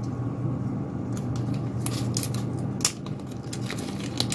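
Small clear plastic accessory bag being handled and opened in the fingers, giving irregular crinkles and clicks over a steady low hum.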